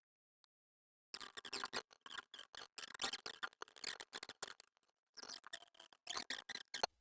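Rapid scratching and clicking of small hand tools working on a laptop motherboard while a shorted MOSFET is being replaced. The sound starts about a second in, comes in quick irregular runs with short pauses, and stops just before the end.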